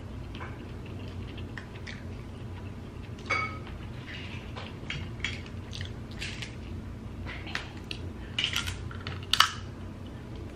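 Dungeness crab shell being cracked and picked apart by hand close to the microphone: irregular small clicks and crackles. There is one sharper crack about three seconds in and a cluster of louder cracks near the end.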